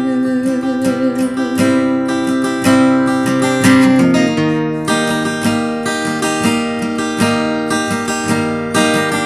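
Acoustic guitar strumming chords in an instrumental break of a song. The tail of a held sung note fades out in the first second or so.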